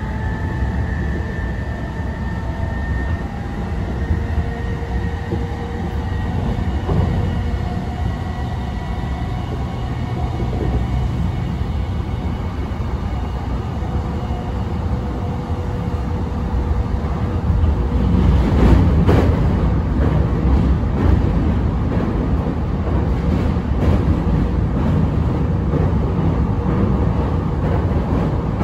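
Cabin running noise of a Ueno-Tokyo Line electric commuter train at speed: a steady low rumble of wheels on rail with a faint whine over it. From about 18 seconds in it grows louder, with scattered sharp clicks and knocks from the wheels on the track.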